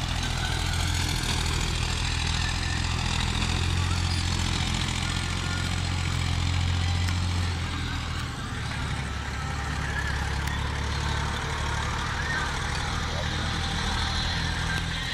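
Tractor engine running steadily, a low drone whose pitch dips slightly about eight seconds in.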